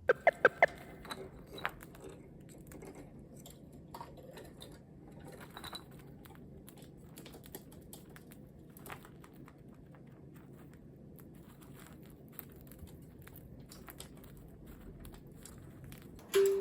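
Cockatiel nibbling and chewing with its beak: small irregular clicks and crunches, with four louder sharp clicks in quick succession in the first second.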